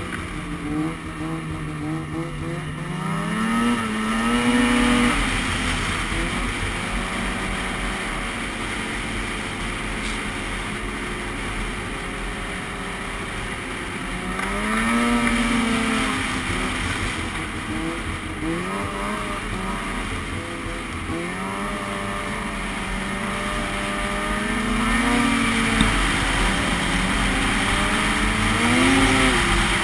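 Polaris IQ 600 snowmobile's two-stroke twin engine running under way on a trail, its revs climbing four times with the throttle and easing back between, over a steady rush of wind and track noise.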